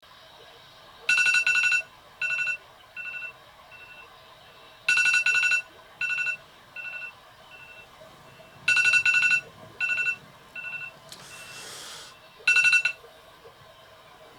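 Amazon Echo alarm going off: a rapid trilling two-note chime repeating about every four seconds, each loud burst trailing off in fainter, shorter repeats. A short rustling hiss sounds once near the end.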